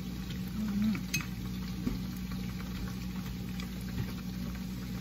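Chicken wings frying in hot oil in a wok, a steady sizzle, over a low steady hum. A light click about a second in.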